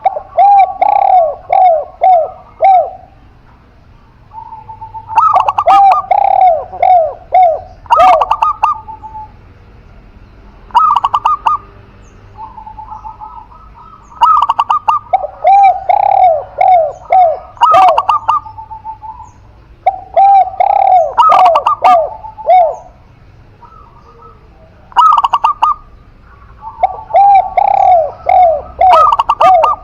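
Spotted dove and zebra dove cooing: repeated bouts of quick, falling coo notes, each a few seconds long, with short pauses between.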